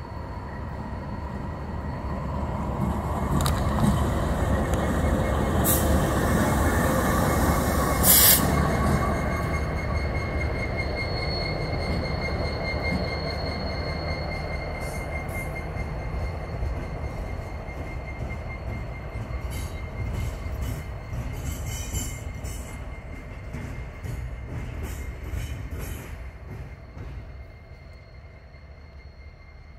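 Several Norfolk Southern diesel locomotives running past slowly, their engine rumble building to its loudest as the lead units go by and then slowly fading as they move away. A thin, steady wheel squeal runs through it, with a few sharp metallic bangs while the locomotives are closest.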